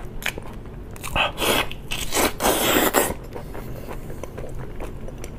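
Close-miked eating of raw marinated prawns: a loud, wet slurp from about a second in, lasting some two seconds as juice is sucked from a prawn head, then small cracks and clicks of prawn shell being peeled and chewed.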